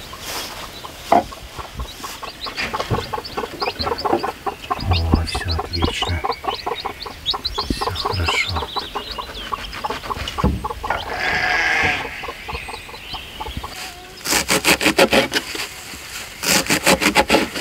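A broody bantam hen clucking to her young chicks, with the chicks peeping in high chirps. Near the end, a knife chopping greens on a wooden board in quick strokes, about four or five a second, with a short break.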